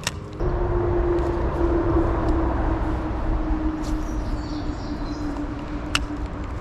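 Spinning reel cranked in a steady retrieve: a rough whirring with a steady hum that sags slightly in pitch, starting just after a click. A single sharp tick near the end.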